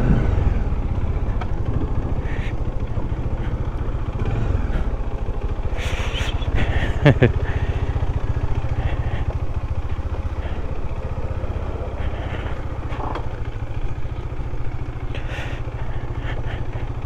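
Motorcycle engine running steadily at low speed as the bike rides onto and across a steel-decked suspension bridge, with a few short rattles and knocks from the bike and deck.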